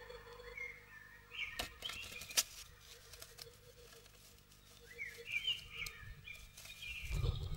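A female great tit arriving in a wooden nest box: wing flutters and a few sharp clicks of claws on wood, with short high chirping calls, then a low rustling near the end as she shuffles down onto her eggs in the moss-and-hair nest lining.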